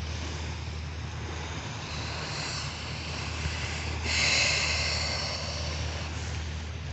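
Small waves washing on a beach over a steady low rumble, with a louder wash of water about four seconds in.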